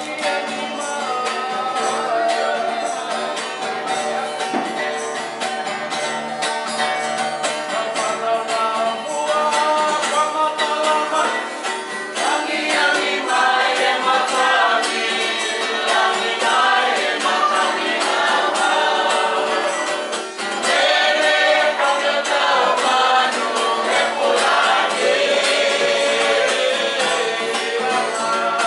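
A group of people singing together as a choir, the singing growing louder about twelve seconds in and again after a short dip near twenty seconds.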